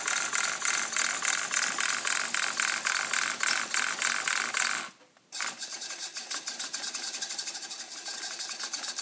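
Savox SC-1257TG coreless servo with titanium gears snapping a buggy's steering rapidly back and forth, a fast chatter of quick clicks and gear buzz. It cuts out briefly about five seconds in, then carries on a little quieter.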